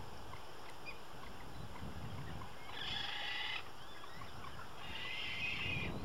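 Frigatebird calls: two calls of about a second each, the first near the middle and the second near the end, over a low steady rumble.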